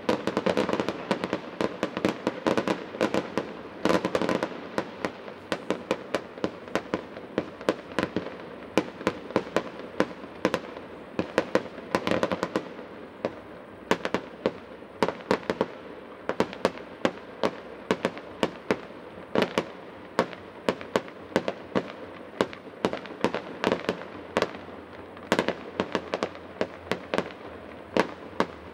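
Aerial fireworks going off in quick succession: a dense crackling barrage in the first few seconds, then a steady run of sharp bangs at about two or three a second.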